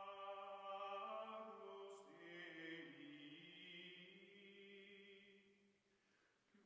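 Faint outro music of long held, choir-like chanted chords that change pitch a couple of times and fade out near the end.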